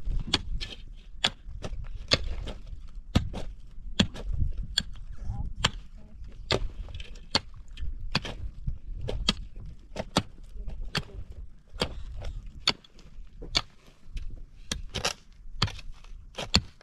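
Pick and shovel digging into hard, stony ground: sharp strikes, irregular, about one or two a second.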